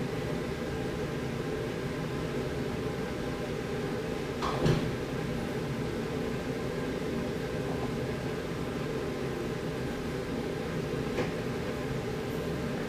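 Steady low room hum, with a single soft knock about four and a half seconds in and a faint tick near the end.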